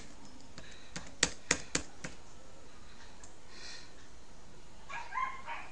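Three sharp computer-mouse clicks in quick succession, about a quarter second apart, a little after a second in. Near the end, a dog whimpers and yips in short high cries.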